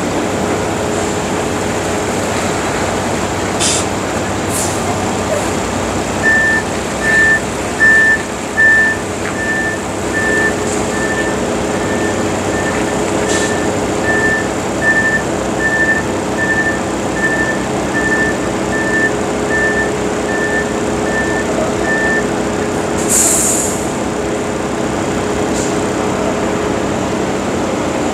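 Heavy truck diesel engine running steadily. From about six seconds in, a reversing alarm beeps evenly at a single pitch, about one and a quarter beeps a second, for some sixteen seconds. A short hiss of air comes near the end.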